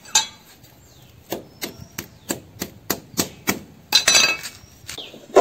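Machete striking a coconut: a run of sharp, regular knocks about three a second, with a denser clatter of blows about four seconds in.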